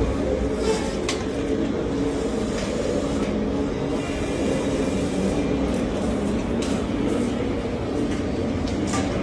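MotoGP race-bike engine running steadily at low revs, a constant pitched drone, with a few light clicks over it.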